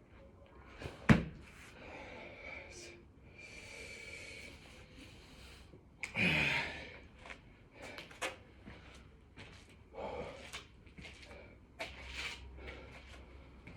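Hard, heavy breathing of a man exerting himself through burpees, with short sharp breaths and a loud forceful exhale about six seconds in. A sharp smack, the loudest sound, comes about a second in.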